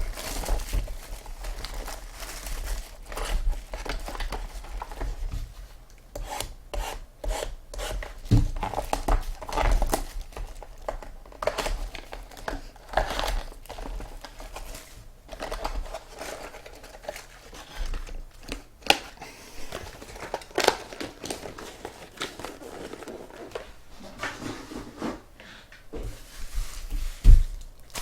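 Trading card packs being torn open and their wrappers crinkled, with cards rubbed and shuffled in the hands: irregular rustling and short clicks throughout.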